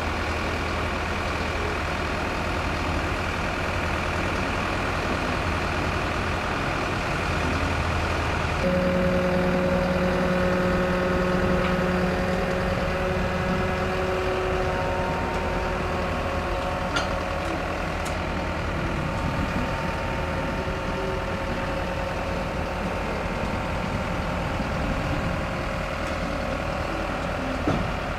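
Heavy diesel engine of a large mobile crane running steadily while it hoists a steel bridge leaf. About nine seconds in, its note steps up higher and louder as it works harder, then settles back toward a steady hum.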